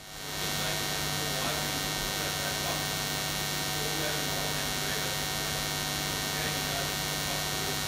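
Steady electrical mains hum with hiss from the sound system, coming up over the first half second and then holding an even level.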